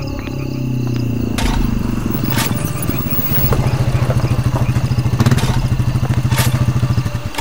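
A low engine throb, pulsing rapidly like an idling motorcycle, that grows louder and then cuts off abruptly near the end. A few sharp knocks come about a second apart over it.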